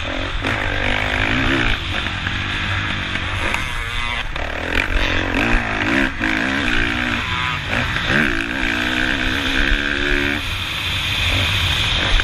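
Kawasaki KX450F four-stroke single-cylinder dirt bike engine under hard riding, its revs rising and falling several times over a steady rush of wind on the microphone, with a few knocks in the middle.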